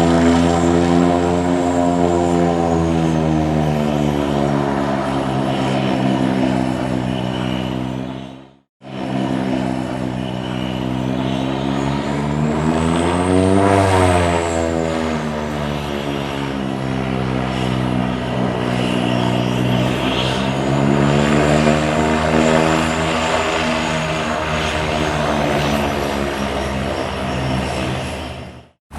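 Propeller biplane engine droning in flight, its note slowly wavering in pitch and swelling to a higher peak and back down about halfway through. The sound drops out abruptly for a moment about nine seconds in, then the engine drone resumes.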